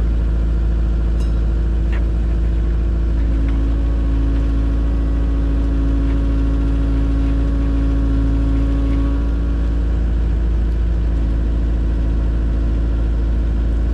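An engine running steadily with a deep, constant rumble, a slightly louder note coming in for a few seconds in the middle.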